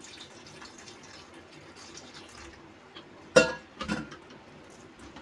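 Water poured from a steel vessel into a plastic bowl of bael pulp, a soft, steady splashing. A little past the middle, two short knocks about half a second apart.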